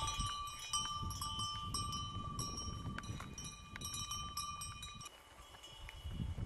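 Small metal animal bell, cowbell-type, clinking and ringing over and over as the animal carrying it moves; the ringing dies away about five seconds in, over a low rumble.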